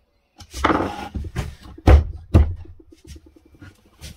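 Plywood router jig handled on a plywood workbench: scraping, then two sharp wooden knocks about half a second apart, followed by a string of light ticks and rattles.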